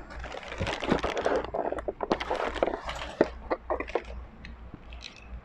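Clear plastic bag crinkling and rustling as it is handled, with small irregular clicks and taps of things being picked up.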